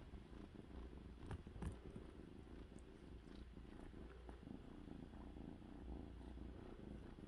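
Kitten purring steadily and low while its chin is stroked, with a couple of faint clicks about a second and a half in.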